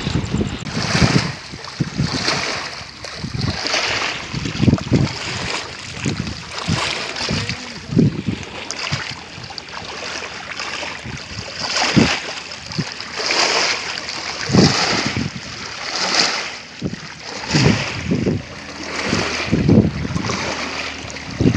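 Small wind-driven waves lapping and splashing against a lake shore in irregular washes every second or two, with wind gusting on the microphone.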